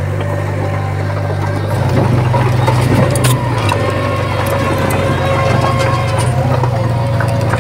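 Heavy-equipment diesel engine running with a steady, pulsing low note, getting louder about two seconds in, with a few metallic clanks around the three-second mark.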